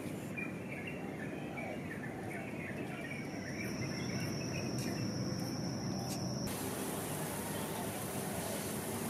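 Outdoor morning ambience: birds chirping, with an insect's steady high trill for a few seconds, over a low background rumble. About six and a half seconds in it cuts to a steady hiss.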